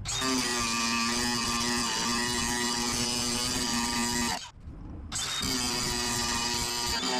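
Welding arc buzzing and crackling in two runs, with a short break of about half a second partway through as the torch trigger is released and pulled again.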